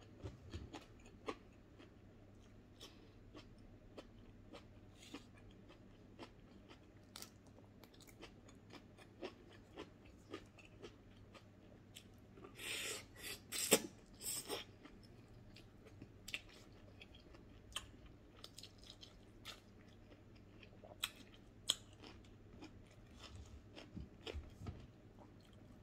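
A person chewing and biting food by mouth: scattered soft crunches and mouth clicks, with a louder run of crunching about halfway through as he bites into a piece of meat.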